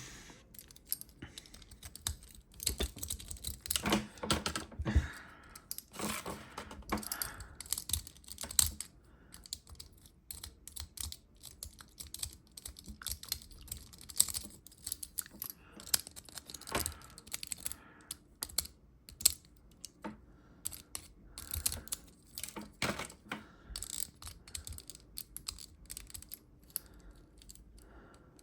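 Many small, irregular clicks and taps of hard plastic parts being handled: a toy gun's battery compartment and its batteries being worked on by hand.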